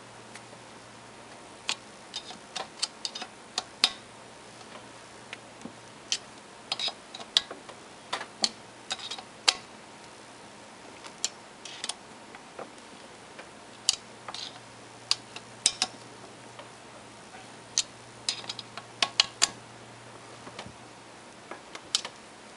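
Irregular metal clicks and ticks, single and in quick little clusters, from a T-handle Allen wrench working the socket screws of an electric motor's drive-end flange. The screws are being snugged up in turn to draw the plate down evenly and reseat the new drive-end bearing.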